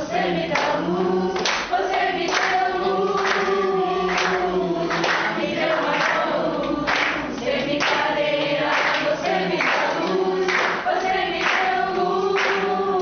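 Mixed amateur choir, mostly women's voices, singing a song together, with hand clapping keeping the beat.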